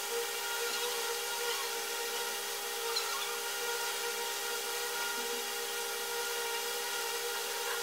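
Steady hum made of several constant tones over an even hiss, unchanging throughout, like a small motor or mains hum.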